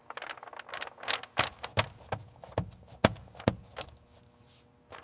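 A series of irregular sharp taps and clicks, about a dozen in three and a half seconds, then quieter for the last second.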